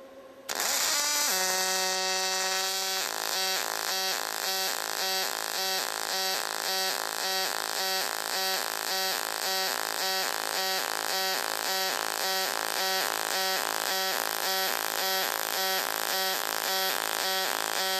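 Panasonic TAWERS robot's AC pulsed-MIG arc welding aluminium: the arc strikes about half a second in and settles into a loud pitched buzz. From about three seconds in, the buzz throbs about twice a second, in step with the torch's weave in weaving-synchronized low-pulse mode.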